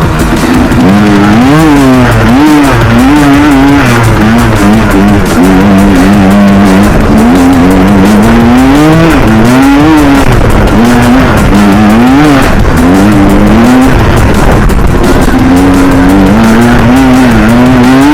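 Yamaha Banshee quad's two-stroke twin engine being revved hard and let off over and over, its pitch rising and falling about once a second as the ATV is ridden offroad.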